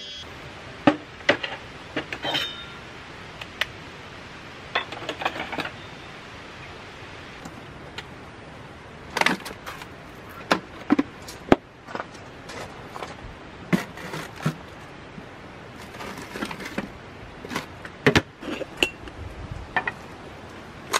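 Scattered sharp clicks, knocks and light clinks, with rustling in between, as camp-kitchen items are handled: packaged food lifted out of a portable cooler, and an aluminium moka pot taken apart.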